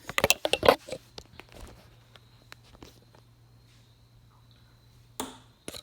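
A quick cluster of sharp knocks and clicks, then a few faint taps and a short rustling burst near the end, over a low steady hum.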